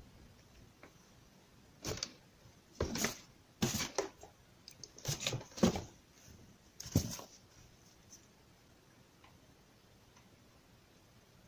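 Unboxing handling noises: a cluster of short rustles and knocks as plastic parts and packaging are moved around in a cardboard box with a foam insert, in the middle of the stretch.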